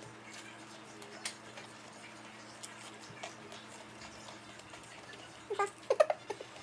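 Quiet eating sounds: faint small clicks and chewing as chicken nuggets are picked up and eaten, over a low steady hum. About five and a half seconds in, a few short high vocal sounds rise and fall.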